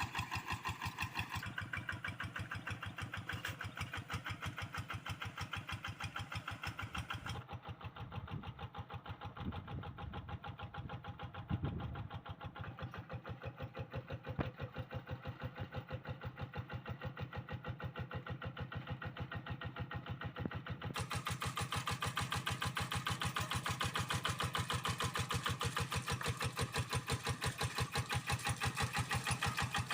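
Kubota RD85DI single-cylinder diesel on a Quick G1000 hand tractor running with a steady, even firing beat. Two sharp knocks stand out a little before and a little after the middle.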